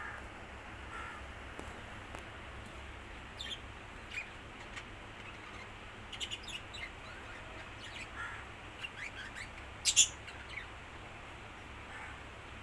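Small birds chirping in short, scattered calls, with a louder pair of high chirps about ten seconds in.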